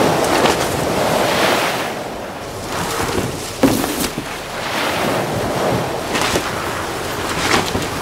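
Storm wind gusting over surging sea waves, swelling and easing. There is a single sharp knock about three and a half seconds in.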